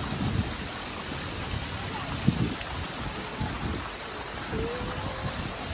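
Water splashing and lapping in a shallow pool as a toddler and an adult play in it, over a steady watery hiss.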